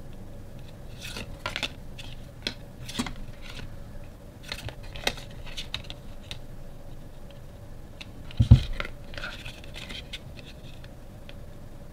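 Stiff cardstock photo tags flipped and shuffled by hand: scattered sharp flicks and papery rustles, with one louder low thump about two-thirds of the way through as the stack is knocked or set against the table.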